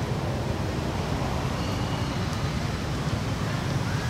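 Steady outdoor background noise: a continuous low rumble with hiss above it, and no distinct event.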